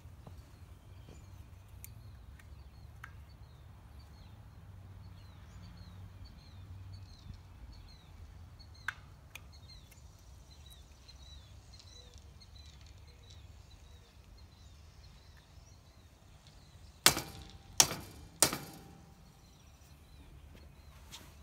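Rubber mallet knocking a plastic glide into the cup of a wrought iron chair foot: three sharp knocks in quick succession near the end, each with a brief ring.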